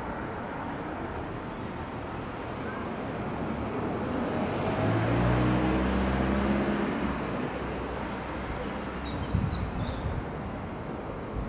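A Mini car drives past at low speed on a quiet street, its engine hum swelling and fading over about three seconds in the middle, over steady traffic noise. Brief high chirps come twice, faintly.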